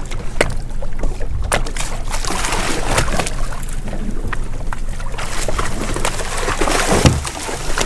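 Water slapping against the hull of a small boat, with wind on the microphone and scattered knocks. Near the end, a hooked kingfish splashes at the surface beside the boat as it is gaffed, with a loud thump about seven seconds in.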